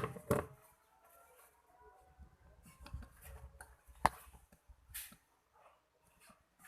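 Small hand tools clicking and tapping, with faint scraping and rubbing between. There are two sharp clicks right at the start, a loud one about four seconds in and a softer one about a second later.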